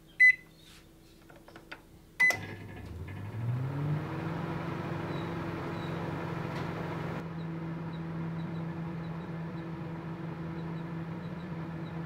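Microwave oven: two short keypad beeps about two seconds apart, then the oven starts up, its hum rising in pitch over about a second and a half and settling into a steady running drone.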